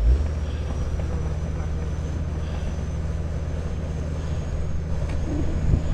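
Heavy vehicle's engine revved up and held in a steady labouring drone as it struggles up a snowy slope, its wheels slipping for traction.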